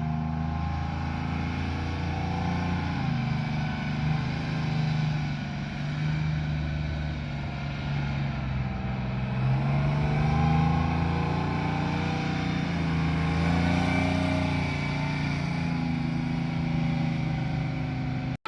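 Caterpillar 637C scrapers' diesel engines running, with several engine tones slowly rising and falling in pitch.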